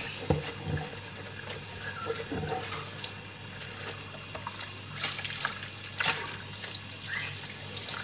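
Tap water running steadily into a sink, with a few sharp knocks of things being handled in the basin.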